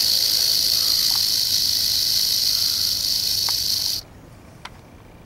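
Timber rattlesnake rattling its tail: a loud, steady, high buzz that cuts off suddenly about four seconds in, the snake's defensive warning while being coaxed with a snake hook. A faint click follows shortly after the buzz stops.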